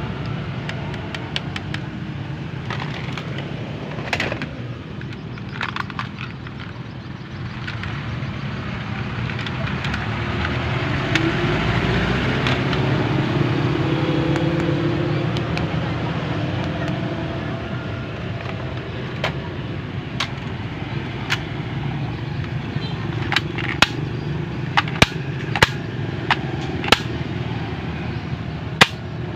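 Steady low background rumble, swelling for a few seconds in the middle, with a run of sharp cracks in the last third, several coming in quick pairs.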